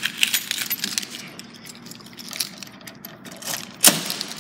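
Clicks and rustling from handling a metal parcel locker and the packages inside it, with one sharp knock near the end.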